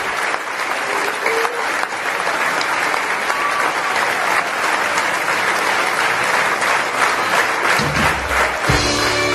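Audience applauding with dense, steady clapping. Band music comes back in under the applause near the end.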